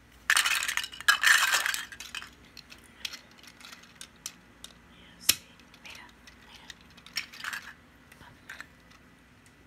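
Plastic Duplo bricks clattering loudly as hands rummage through a pile of them, then scattered clicks and knocks as bricks and train wagons are handled and fitted together, with one sharp click a little after five seconds in.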